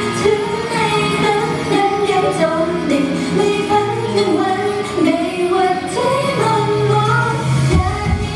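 Idol-pop song with female lead vocals singing the melody over a loud backing track; near the end the bass and drums come in fuller.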